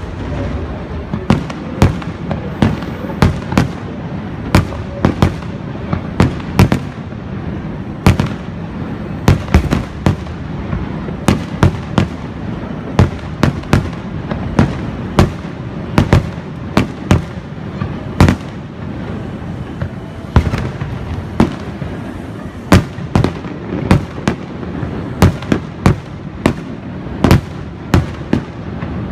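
Aerial firework shells bursting in a steady barrage: dozens of sharp booms, irregularly spaced and sometimes two or three in quick succession, over a continuous low rumble.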